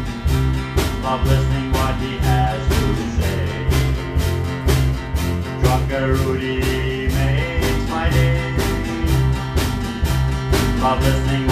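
A small band playing live with a steady drum-kit beat, electric bass and guitar.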